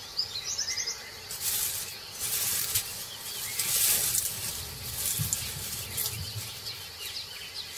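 Dry grass rustling and crackling in uneven bursts as a tiger pushes through it, with a few soft low footfalls. A quick series of faint high bird chirps sounds just after the start.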